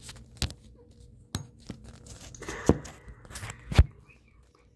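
Bathroom sink faucet being handled: a few sharp knocks and clunks, the loudest near the end, with a brief rasping rush between them.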